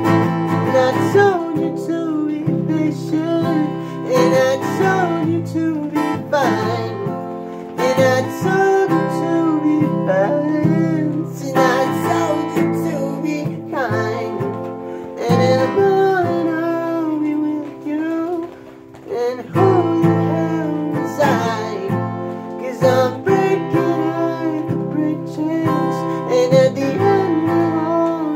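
A man singing over a strummed acoustic guitar, his voice sliding between held notes above steady chords.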